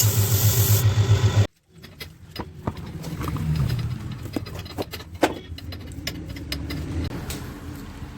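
A motorcycle engine running with a regular low throb, cut off suddenly about one and a half seconds in. Then quieter scattered clicks and knocks over a low hum.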